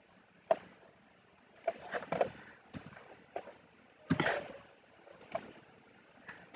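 Irregular clicks of a computer mouse and keyboard while working in software, a few single clicks and a quick cluster, with one heavier knock about four seconds in.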